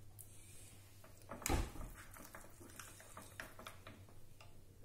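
Ground sabudana (sago) paste being mixed in a bowl: faint stirring with a few light knocks against the bowl, the loudest about one and a half seconds in.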